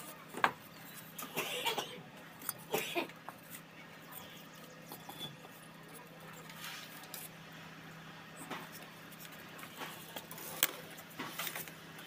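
Steel brick trowel knocking and scraping on bricks and cement mortar while bricks are set and tapped into place: scattered sharp knocks and clicks, the loudest about half a second in and another late, over a faint steady low hum.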